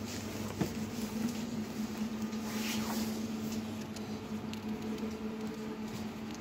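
Steady low electrical hum inside the passenger compartment of a Leoliner NGTW6 tram, from its onboard equipment, with a sharp click about half a second in and light rustling from the phone being handled.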